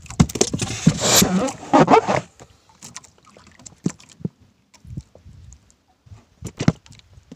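Loud rustling and crackling handling noise for about two seconds, then scattered light taps and a few sharp knocks near the end as a fishing handline is hauled in hand over hand on a small boat.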